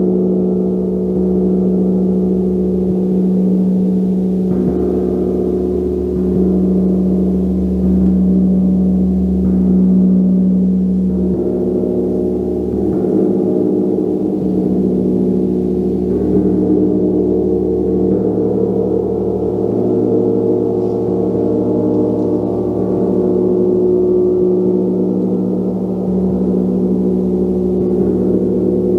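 Gong played continuously in a gong practice: repeated soft strikes keep a dense, sustained wash of low humming and shimmering overtones going, shifting in pitch colour every few seconds.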